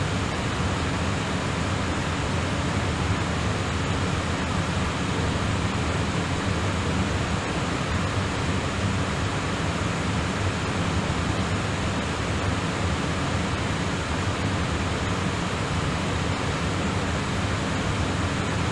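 Steady rushing noise of air and engines inside a Boeing airliner's flight deck in flight.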